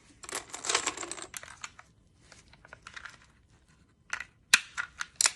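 Plastic clicking and rattling of a Magpul PMAG D-60 drum magazine being handled and assembled. A burst of rattling comes shortly after the start, then a run of sharp snaps and clicks near the end.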